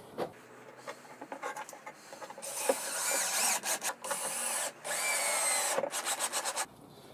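Cordless drill driver running into the top of a plywood box in three short bursts of motor whine, ending in a quick run of clicks. A few light knocks come first as the box is handled.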